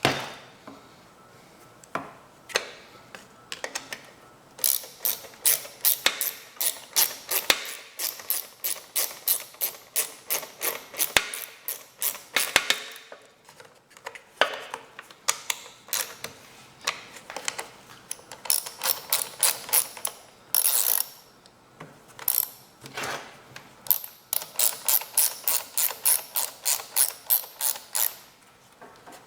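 Ratchet wrench clicking in runs of quick strokes, with short pauses between the runs.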